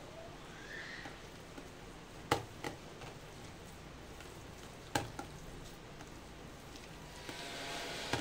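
A hand kneading and squishing a thick spice-and-gram-flour paste against a steel plate, a soft wet mixing sound, with two sharp clicks a little over two seconds apart and a louder stretch of mixing near the end.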